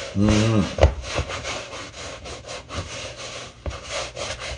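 Repeated rough rubbing and scraping strokes, several a second and uneven, from hands working against a plastic bowl. A short sung note comes just after the start.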